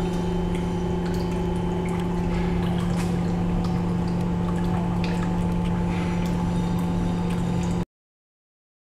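Circulating water pump running with a steady hum, with water flowing through the clear hoses that cool the plate. It cuts off suddenly near the end.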